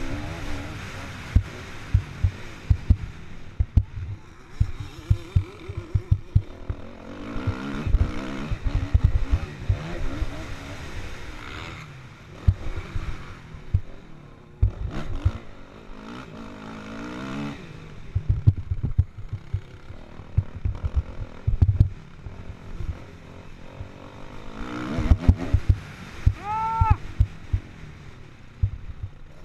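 Kawasaki KX450F single-cylinder four-stroke motocross engine being raced, its pitch rising and falling as the throttle opens and closes, heard through heavy wind buffeting on a helmet-mounted microphone. A brief high-pitched call rises and falls near the end.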